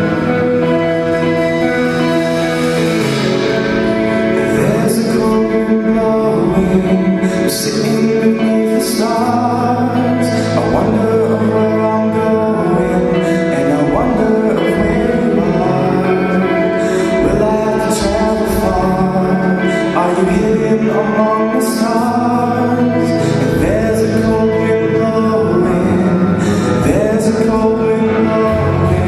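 Live band performing a song: guitar chords with a male voice singing over them from a few seconds in.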